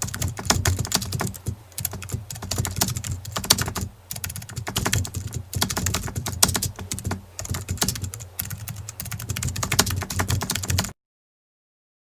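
Keyboard typing sound effect: rapid, irregular key clicks over a low hum, stopping abruptly about eleven seconds in.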